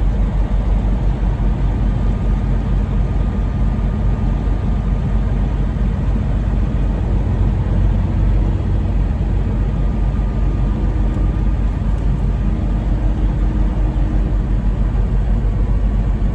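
Semi truck's diesel engine running, a steady low drone while the truck is driven and turned around.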